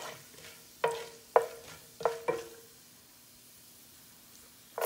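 A wooden spatula knocks four times against a nonstick frying pan, each knock with a short ringing note from the pan, while whole spices fry faintly in hot oil. Near the end, chopped onions go into the hot oil and loud sizzling starts suddenly.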